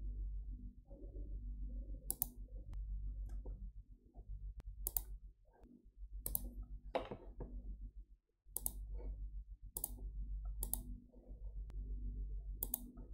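Computer mouse buttons clicking now and then, about seven sharp single clicks spread over several seconds, over a low steady hum.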